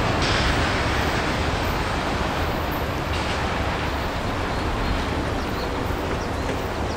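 Manifest freight train's autorack cars rolling away on the rails: a steady rumble of steel wheels on track that slowly fades.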